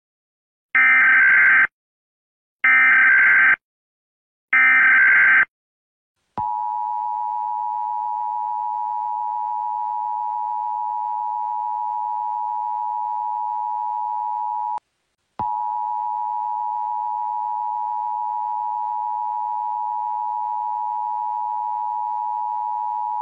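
Emergency Alert System signals: three short bursts of screeching SAME data header, then the steady two-tone attention signal, broken by a brief gap about halfway through and resuming. It marks an emergency broadcast about to be read.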